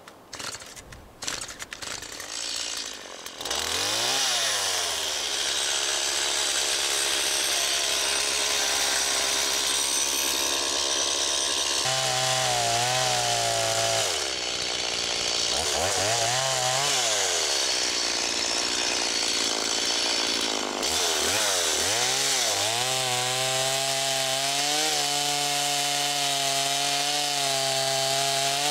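Chainsaw cutting through a fallen tree. A few sharp knocks come in the first seconds, then the saw runs continuously, its pitch dropping and climbing again several times as it is throttled up and bites into the log.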